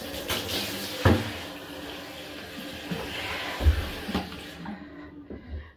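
Handheld shower head spraying water onto a wet dog in a bathtub, with a few knocks and a low thump; the spray cuts off about four and a half seconds in.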